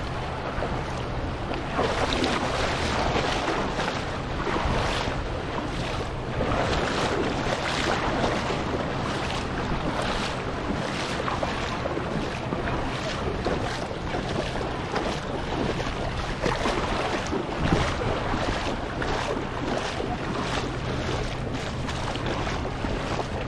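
Shallow seawater splashing and sloshing as someone wades through it, with wind buffeting the microphone in uneven gusts.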